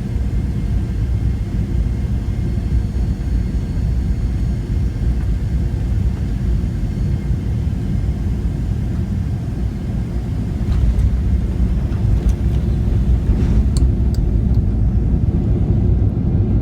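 Boeing 737-700 jet airliner giving a steady low rumble that gets louder about ten seconds in, with a few faint clicks near the end.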